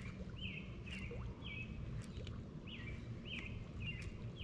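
A bird calling over and over, about six short falling notes spaced roughly half a second to a second apart, over a low steady hum and a few faint clicks.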